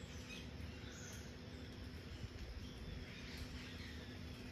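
Faint outdoor ambience under light drizzle: a steady hiss over a low rumble, with a few faint bird chirps now and then.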